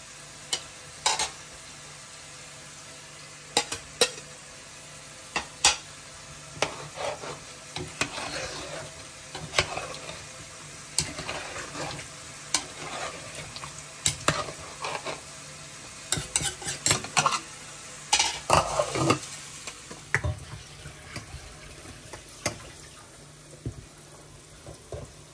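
Vegetables (bottle gourd, pumpkin and greens) frying with a steady sizzle while being stirred, a cooking utensil scraping and knocking against the pan at irregular moments.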